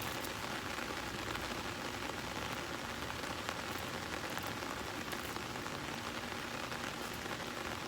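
Steady rain falling outdoors, an even hiss of drops hitting surfaces.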